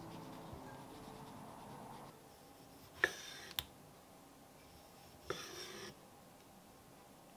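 Two short scraping or rubbing strokes about two seconds apart, each starting with a click, after the tail of background music fades out in the first second or two.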